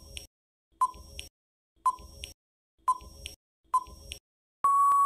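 Countdown timer sound effect: short beeping ticks about once a second, five of them, then a long steady beep starting near the end.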